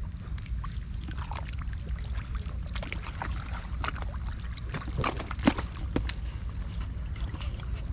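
Water splashing and dripping as a wet fishing net is hauled and handled in shallow water, with many small irregular clicks and one sharp knock about five and a half seconds in, over a steady low rumble.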